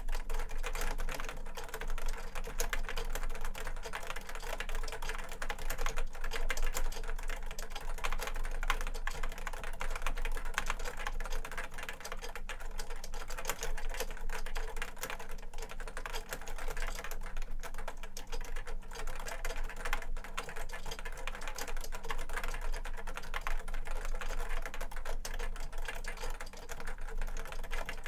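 Continuous fast typing on a JUKI Celavi FK212-JS keyboard with Topre Hipro switches fitted with 25 g domes, the board resting on two stacked desk mats.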